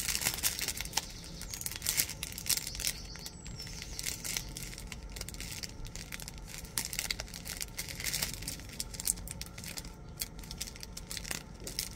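Plastic packaging crinkling and rustling in irregular fits of small crackles, as small plastic bags of diamond painting drills are handled and pulled at to get them open.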